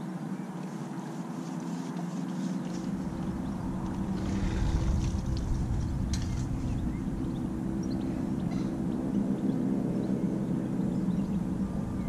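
A steady low engine drone. A low rumble joins it about three seconds in, with a few light clicks and rustles near the middle.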